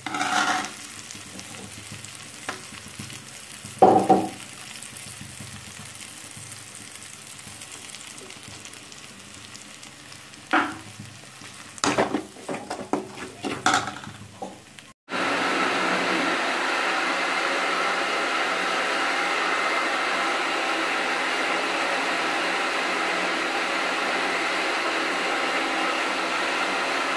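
Onion-tomato masala sizzling in a steel pan, stirred with a metal spoon, with a few sharp spoon knocks against the pan. About halfway through this gives way abruptly to a louder steady whir: a kitchen mixer grinder running as it grinds grated coconut.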